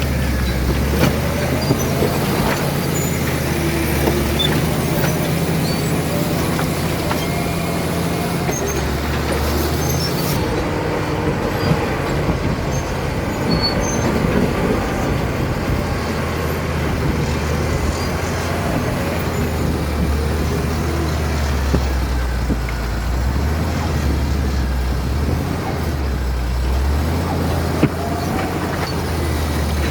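Caterpillar D7 bulldozer's diesel engine running steadily under work, its pitch shifting a few times as the load changes, with scattered clicks and faint squeals from the running gear.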